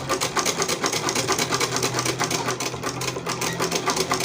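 Domestic sewing machine stitching at a steady speed: a rapid, even clatter of needle strokes over the low hum of its motor, sewing an invisible zipper in place with an ordinary zipper foot.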